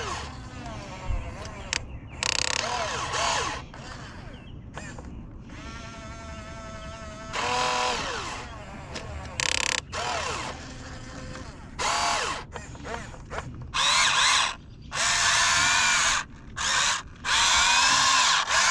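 Huina 1592 RC excavator's small electric gear motors whining in repeated stop-start bursts as the arm and bucket dig, the pitch sliding up and down with the load. The bursts grow longer and come closer together in the last few seconds.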